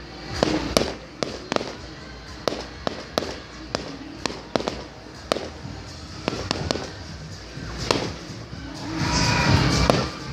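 Aerial firework shells bursting in an irregular run of sharp bangs, roughly two a second, with a louder, noisier stretch near the end.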